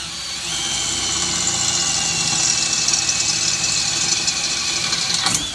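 DeWalt brushless cordless drill driving a bit through 1/8-inch stainless steel plate to make a pilot hole, run below full speed. A steady motor whine with the bit grinding into the metal, the pitch sagging slightly as it cuts, then it stops abruptly at the end.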